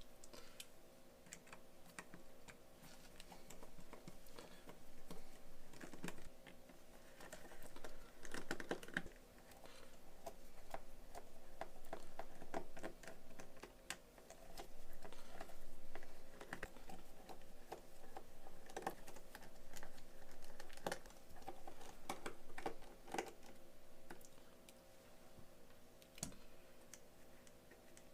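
Irregular light clicking and tapping over a steady hum.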